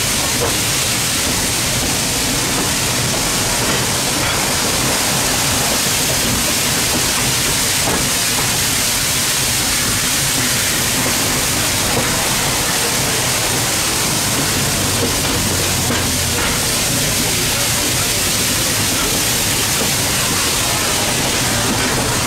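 Steady rushing noise of a train in motion, heard from just behind the tender of a former Pennsylvania Railroad 0-6-0 steam locomotive.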